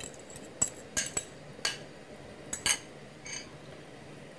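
A metal fork clinking against a ceramic bowl and a pot as beaten egg is poured into soup: about eight light, irregular clinks.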